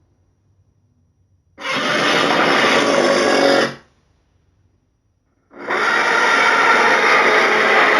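Two Godzilla roar sound effects: a harsh, rasping roar of about two seconds that cuts off sharply, then after a pause of nearly two seconds a second roar begins and keeps going.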